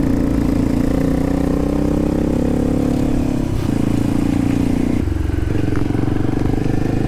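Adventure motorcycle engine running steadily under way on a trail ride. Its note dips briefly about three and a half seconds in and changes again about five seconds in.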